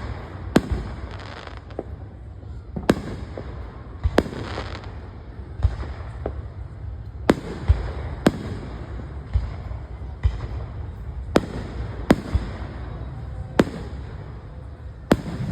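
Fireworks going off: a dozen or more sharp, loud bangs at irregular intervals, about one every second or so, over a steady low rumble.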